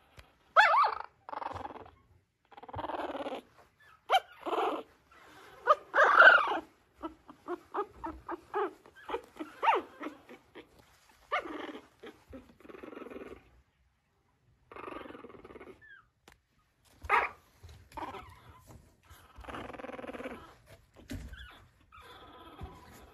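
A very young mixed-breed puppy crying in short, repeated calls with pauses between them, a few of them much louder than the rest.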